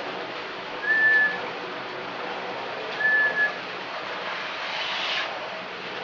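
Vacuum cleaner (hoover) running steadily, with two short, level whistles at the same pitch about two seconds apart, and a brief swell of hiss about five seconds in.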